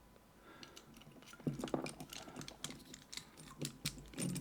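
A disc detainer coil bike lock's small metal parts being handled: irregular light clicks and taps, busiest about a second and a half in and again near the end.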